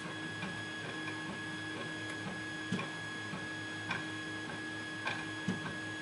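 Lock pick and tension wrench working a pin-tumbler lock cylinder clamped in a vise, making about half a dozen faint, irregular metallic clicks and scrapes as the tools go in and begin lifting pins. A steady electrical hum runs underneath.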